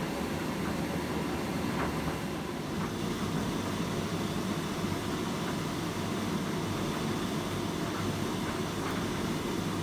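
Hotpoint FETC70BP condenser tumble dryer running on high heat with a load of towels: a steady drum and fan rumble with faint irregular ticks. This is ordinary, not especially loud dryer running noise.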